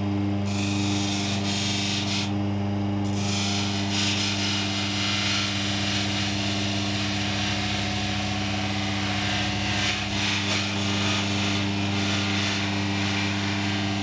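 Electric sharpening machine running with a steady hum while a chisel's edge is held against its spinning felt deburring wheel, a high hissing rub that removes the wire edge (burr) left by grinding. The rub drops out for about a second a couple of seconds in, then resumes; this rubbing noise is the cue that the chisel is held at the right angle.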